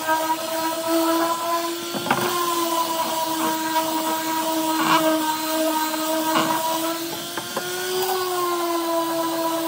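Electric random orbital sander running steadily on a painted cabinet door, a constant motor whine whose pitch rises slightly twice, with a few brief scuffs of the pad against the wood.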